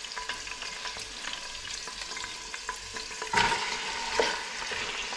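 Hot oil with whole spices, ginger and garlic sizzling in a stainless steel pot, with small scrapes and taps of a spatula. About three seconds in, raw boneless chicken pieces are tipped in and the sizzle surges suddenly louder, then settles into steady frying.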